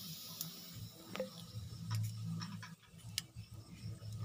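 Charcoal fire under a wire grill grate, with scattered sharp ticks and crackles about once or twice a second over a faint low hum.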